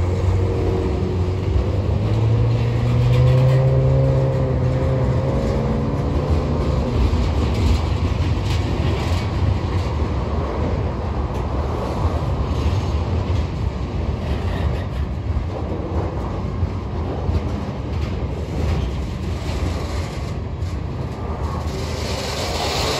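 A long freight train rolling past: a steady rumble and clatter of wheels on rail. A low hum sits over it for the first several seconds.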